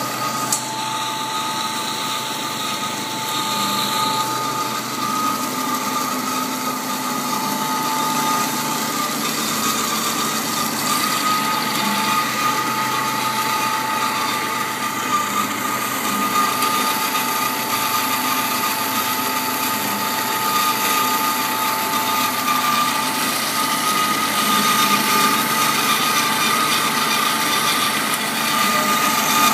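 Bomar Individual 510.330 GA horizontal metal-cutting bandsaw running and cutting through a round metal bar. It makes a steady mechanical whine with no breaks.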